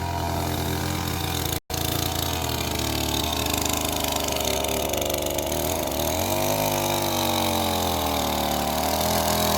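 A vehicle engine running at a steady low idle, then its speed rising and falling for a couple of seconds past the middle. The sound cuts out for an instant about two seconds in.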